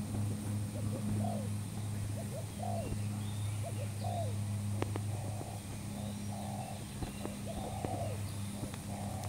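Spotted dove cooing: a run of short, repeated coo notes over a steady low hum, with a single sharp click about halfway through.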